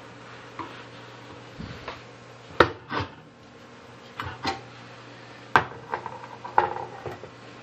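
A handful of sharp knocks and clicks of hard objects being handled, over a steady low hum.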